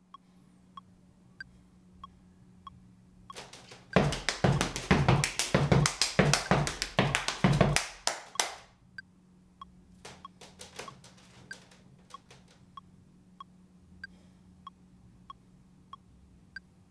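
Step routine body percussion: stomps and claps in a loud, fast rhythmic run for about four seconds in the middle, with a few more sharp hits a little later. Under it a light steady tick keeps the beat about every two-thirds of a second.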